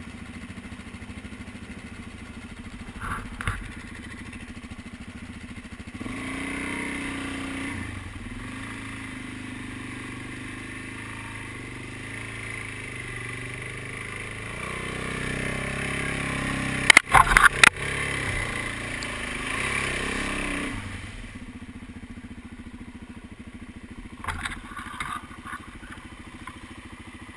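Dual-sport motorcycle engine running as the bike rides through a flooded trail, louder through the middle stretch, with a few sharp knocks or splashes about two-thirds of the way through.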